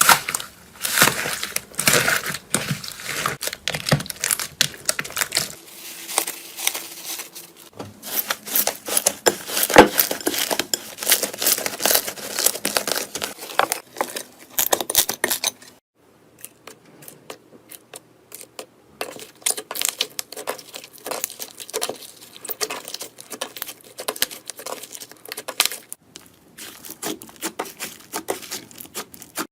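Slime being squeezed, pressed and stretched by hand, giving dense crackling and popping. The texture changes abruptly several times as one slime gives way to another.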